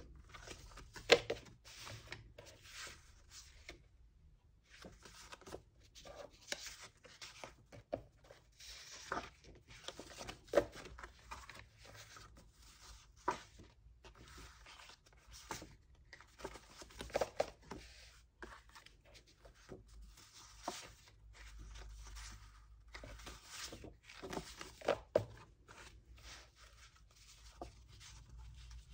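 Sheets of 15 × 15 cm designer-series paper rustling and sliding against one another as they are leafed through by hand, in short irregular rustles with a few louder flicks.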